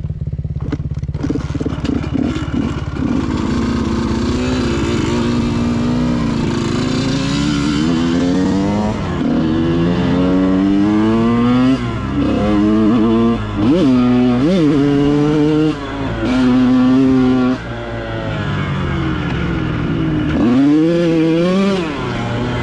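Dirt bike engine under way on a trail, its pitch climbing and falling again and again with throttle and gear changes, with several brief drops where the throttle is shut off.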